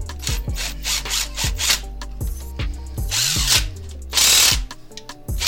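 Cordless power tool driving bolts in short bursts on a GM V8's valvetrain, the two longest bursts about three and four seconds in, over background music with a steady beat and bass line.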